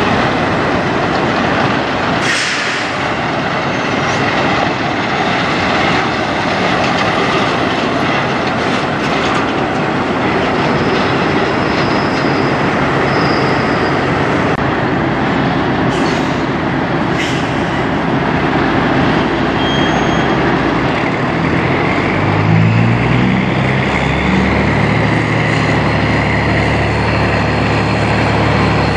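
A steady, loud heavy-vehicle rumble with rattles and a few faint high squeals. About three-quarters of the way through, a Peterbilt semi's diesel engine comes up close, its pitch climbing in steps as it accelerates through the gears, then holding steady.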